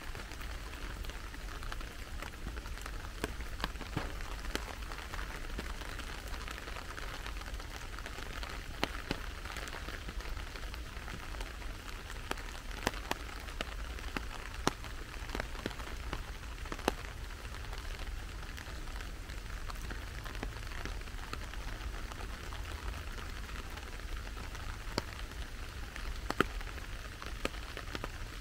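Steady rain falling: an even hiss of rain with scattered sharp, irregular ticks of individual drops striking close by.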